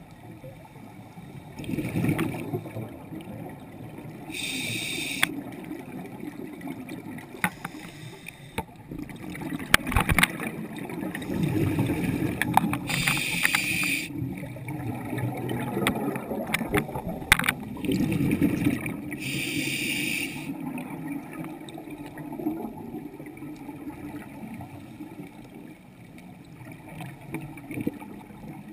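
Scuba regulator breathing underwater: three times, the rumbling gurgle of exhaled bubbles is followed by a hissing inhale through the regulator, with a few sharp clicks between.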